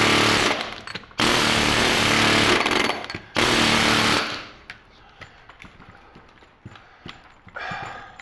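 Snap-on pneumatic air hammer hammering the steel core of a core-and-coil transformer, running in three loud bursts of rapid blows. It stops about four seconds in, leaving a few faint knocks.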